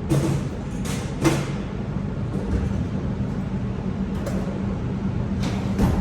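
Pistol shots with a short echo: three within the first second and a half and two more near the end, over a steady low hum.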